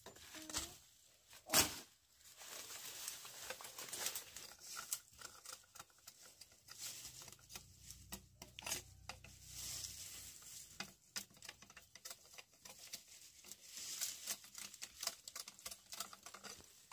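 Irregular rustling with many small crackles and clicks, like dry plant material being handled, and one sharper knock about a second and a half in.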